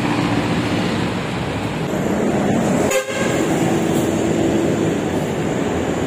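Steady city road traffic noise from passing cars and a bus, with a faint vehicle horn tone heard twice, near the start and again about four seconds in. A short click about halfway through.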